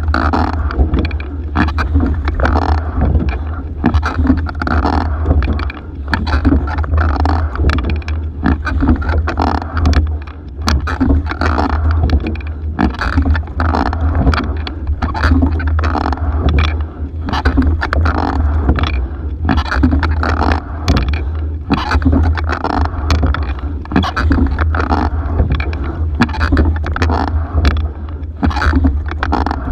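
Single racing scull being rowed hard: water rushing along the hull, with frequent sharp knocks and clicks from the oars and rigging, over a steady low rumble.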